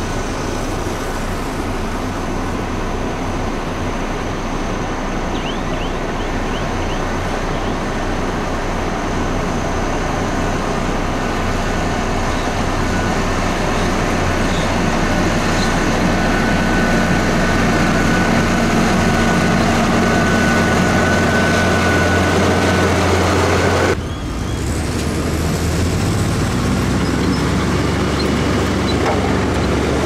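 Heavy diesel engines of earthmoving machinery running steadily and slowly getting louder, then an abrupt break about three quarters of the way through. After the break, a dump truck's diesel engine runs with its bed tipped up, unloading soil.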